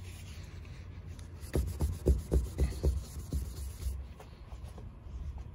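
A paper wipe rubbed briskly back and forth on the trailer's painted sidewall, making a run of soft low thumps about four a second for a couple of seconds, over a low hum. It is wiping wax off the spot before a level is stuck on.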